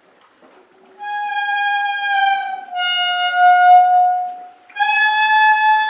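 A horse calling from the barn in three long, loud, steady-pitched cries one after another, the middle cry a little lower than the others.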